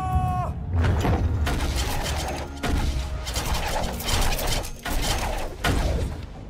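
Film battle-scene soundtrack: a brief held call at the start, then a dense wash of battle noise with sharp hits over a deep rumble, swelling in four or five surges, as arrow volleys are loosed.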